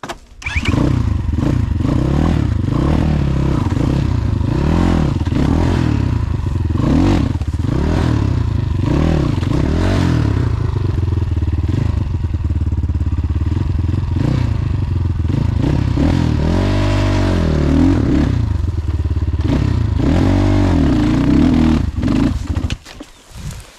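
Off-road motorcycle engine revving up and down over and over as the rear wheel spins, trying to get grip uphill on leaf-covered ground. Near the end the revs drop away.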